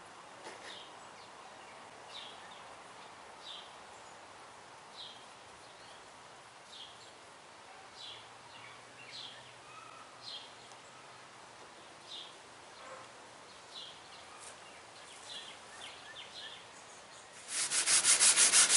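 Faint outdoor background with a bird's short call repeated about every second and a half. Near the end, loud hand sanding starts: 220-grit sandpaper rubbed quickly back and forth over a cured epoxy repair on a fiberglass canoe hull.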